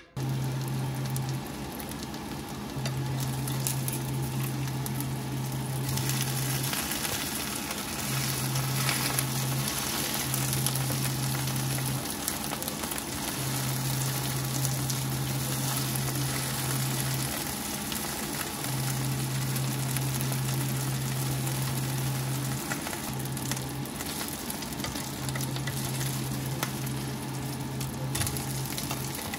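Food frying and sizzling in a hot pan, with a low hum that cuts in and out every few seconds.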